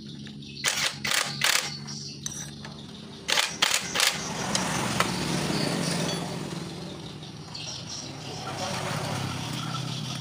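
Cordless impact wrench on a motorcycle clutch, run in short bursts: three quick bursts about a second in and three more about three and a half seconds in, followed by a few seconds of rougher noise, over a steady low hum.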